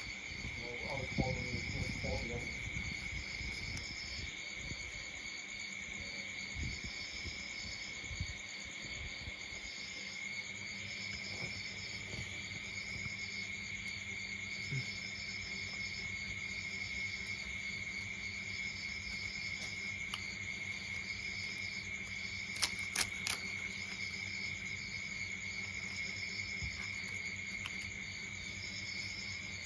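Steady chorus of insects, probably crickets: a constant high trill with a pulsing chirp above it, repeating every second or two. A brief voice about a second in, and a couple of sharp clicks about 23 seconds in.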